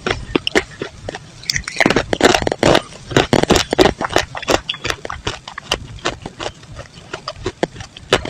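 Close-miked crunching of chalk and clay being bitten and chewed: dense, irregular crackling snaps, several a second, with louder clusters of crunches.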